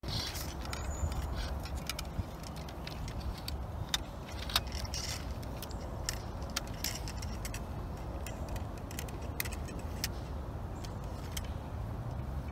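Scattered metallic clicks and clinks of several muzzle-loading muskets being loaded: steel ramrods drawn, rammed down and returned in the barrels, and the muskets handled. The clinks come over a steady low rumble.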